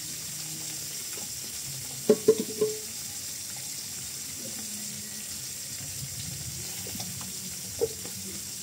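Salted climbing perch frying in hot oil in a pan, a steady sizzle. A quick run of sharp cookware clanks comes about two seconds in, and one more near the end.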